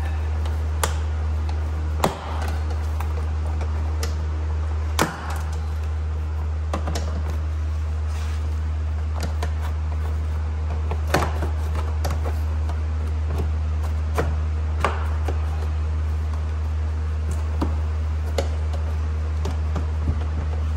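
Plastic push-pin clips of a Jeep Grand Cherokee door trim panel popping loose as the panel is pried off, a sharp snap or click every few seconds, the loudest about two and five seconds in, over a steady low hum.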